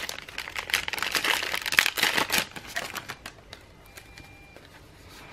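Clear plastic bag crinkling as hands pull cards and samples out of it: a dense crackle for about three seconds, then a few faint rustles and clicks.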